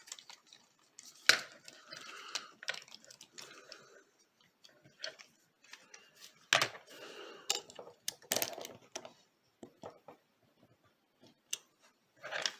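Plastic parts of a Transformers Deluxe Ratchet toy figure being handled and transformed: irregular sharp clicks of joints and pieces snapping, with short scraping and rubbing sounds between them.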